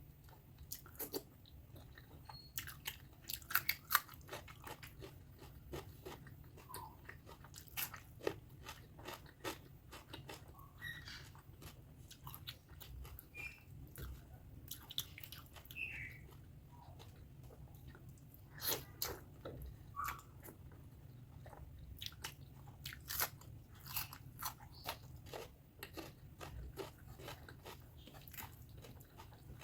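Close-miked chewing and biting of spicy pork fat curry with basmati rice: a steady run of short, wet mouth clicks and smacks at irregular intervals.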